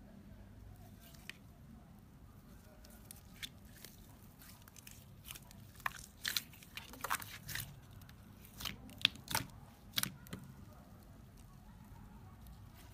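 Clear glitter slime being squeezed and stretched by hand: scattered sticky crackles and pops, bunched mostly in the middle, with quieter squishing between them.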